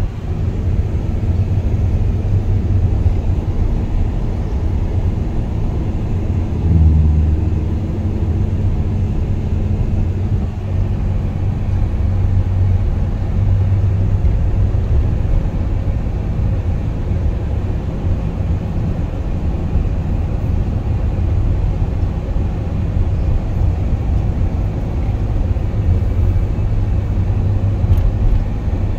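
Road and engine noise inside the cabin of a Nissan NV350 van on the move: a steady low rumble, with a brief louder surge about seven seconds in.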